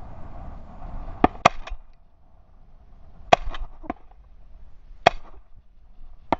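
Shotgun shots on a pheasant hunt: about seven sharp cracks over six seconds, some in quick pairs and some single, at varying loudness.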